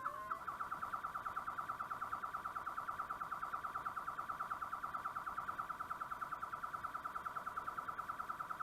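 Spy-gear trip-wire alarm sounding. Just under half a second in, its rising chirps give way to a steady, rapid beeping of about ten pulses a second, a pattern the investigators call weird and not the alarm's normal sound.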